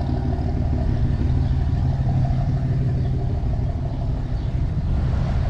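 Car engine idling steadily with a low, even rumble.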